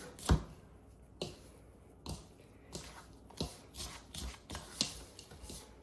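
Fingers mixing and squeezing a damp baking soda and citric acid powder in a bowl: scattered soft crunches and rustles, about one a second.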